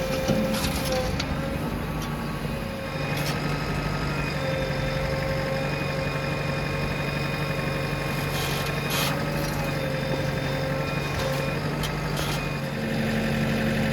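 Heavy diesel machinery running steadily, its engine note rising and strengthening about three seconds in, with a few sharp knocks.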